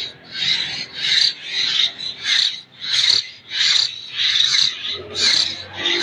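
Nestling hill mynas giving harsh, raspy begging calls, repeated about twice a second: hungry chicks still dependent on hand-feeding, gaping for food.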